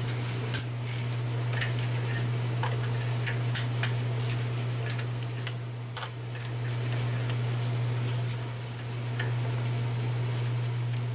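Ratchet clicking and metal tool clinks as spark plugs are unscrewed with a spark plug socket and extension. A steady low hum from the shop's cooler runs underneath.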